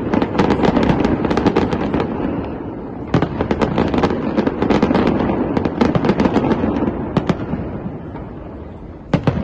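Fireworks going off in a dense, rapid crackle of many sharp pops and bangs over a steady rumble. The crackle thins out near the end, with a last couple of pops.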